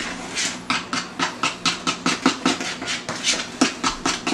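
A utensil beating cake batter by hand in a plastic mixing bowl: quick, rhythmic scraping strokes, about five a second.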